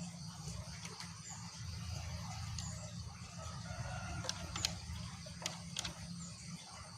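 Green junglefowl calling faintly over a steady low hum, with a few sharp clicks about four to six seconds in and faint high chirps.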